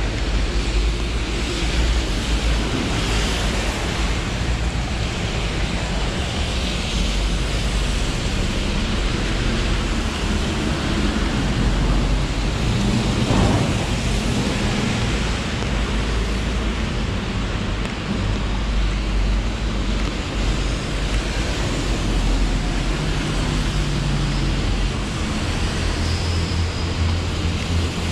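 Steady outdoor noise: wind rumbling on the microphone, mixed with the hiss of car tyres on a wet road.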